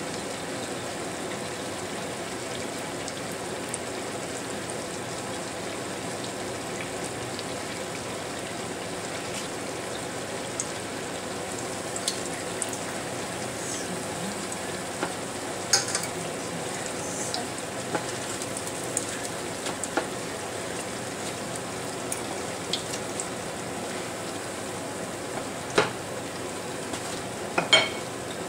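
Fleischkrapfen (meat-filled pastries) frying in hot fat: a steady sizzle with a few sharp clicks now and then.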